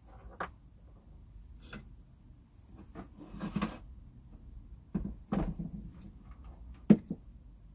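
Scattered clicks, taps and light knocks of hands fumbling with small screws and wire terminals on the electric bike's batteries, with one sharper knock near the end.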